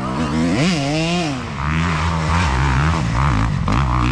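Dirt bike engine revving up sharply and dropping back about a second in, then running at a steadier lower pitch.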